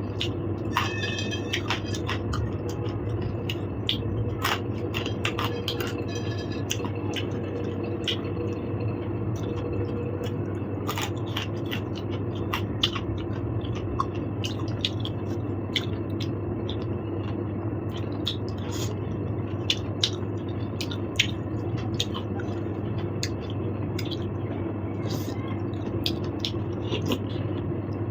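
A person eating: chewing with many small, irregular clicks and scrapes, over a steady low background hum.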